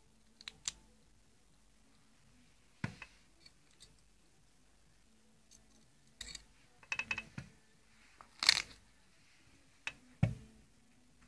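Small everyday-carry items being handled and set down: scattered clicks, taps and dull knocks, with a quick run of clicks around the middle and a louder rustle or scrape about three-quarters of the way through.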